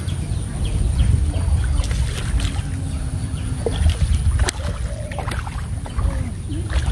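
A hooked fish splashing and thrashing at the surface of the water as it is reeled in to the bank, in irregular sharp splashes over a steady low rumble.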